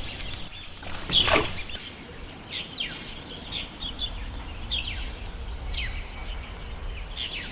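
Steady high-pitched insect trill, cricket-like, with short falling bird chirps every second or so; one louder falling call comes about a second in.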